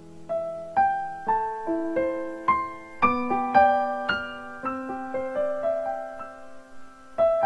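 Background piano music: a slow melody of single struck notes, about two a second, each ringing and fading.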